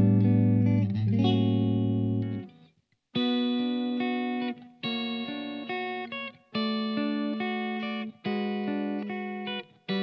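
Soloking MT-1 Custom 22 electric guitar with its Soloking Modern Vintage humbuckers, played through an amp. A chord rings out and stops about two and a half seconds in. After a brief gap comes a run of picked chords, each held about a second and a half and cut off before the next.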